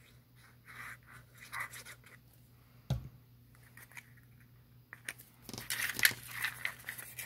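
Folded paper pleats crinkling and rustling as they are handled and pressed together, loudest in the last two seconds, with one sharp knock about three seconds in.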